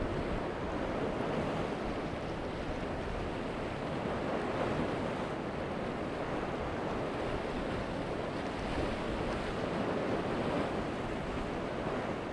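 Steady rushing noise of wind and open water, with no distinct events.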